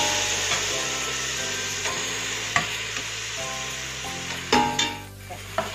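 Masala sizzling in a hot steel pot as it is stirred, with a few sharp scrapes and knocks of the spoon against the pot. The sizzling is loudest at the start and dies down near the end.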